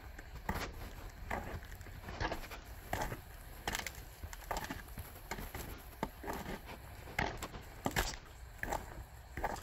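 Footsteps of a person walking at a steady pace on ice- and sleet-crusted ground, each step a short crisp impact, a little more than one a second.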